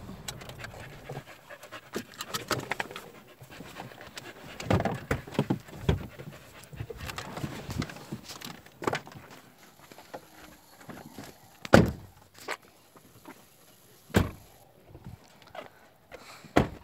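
A dog panting, mixed with irregular knocks and rustles of a phone being handled and moved about. Several sharp thumps come through, the loudest about twelve seconds in.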